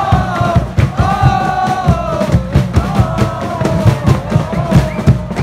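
Music: singing over a steady drum beat.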